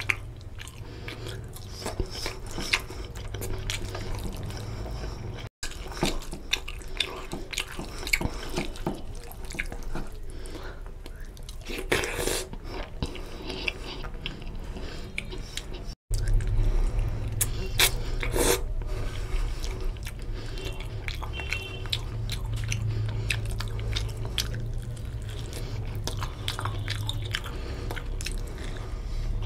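Wet, sticky squelching and crackling of fingers mixing basmati rice into oily chicken curry on a metal plate, with chewing and lip-smacking between mouthfuls, over a steady low hum.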